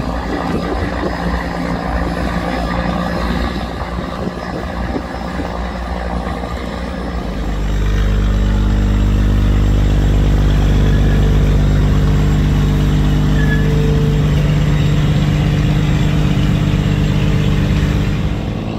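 Barge's diesel engine running, then picking up speed about seven seconds in and holding a louder, steady drone. The sound drops away suddenly just before the end.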